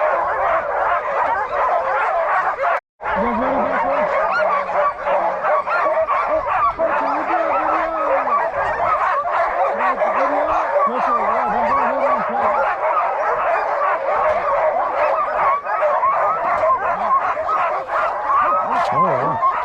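A team of sled dogs barking and yelping together in a dense, continuous chorus, with some lower whines among them. This is the excited clamour of a hitched team waiting to run. The sound cuts out for a moment about three seconds in.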